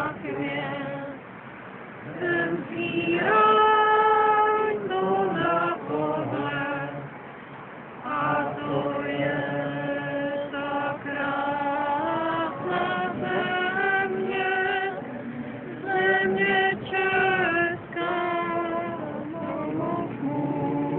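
Voices singing a slow song together, a woman's voice standing out, in phrases of long held notes with short breaks between them.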